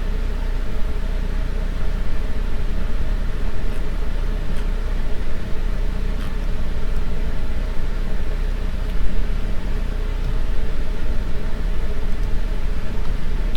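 Steady, low rumbling background noise with a few faint clicks scattered through it.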